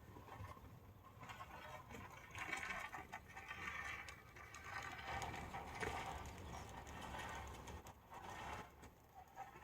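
Fishing reel being wound, a faint whirring ratchet of gears that swells in the middle and eases toward the end.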